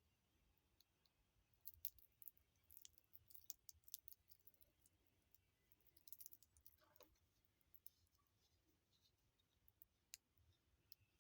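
Faint, scattered clicks and light ticks from a stainless-steel watch and bracelet being handled, coming in irregular clusters through the middle and fading off toward the end.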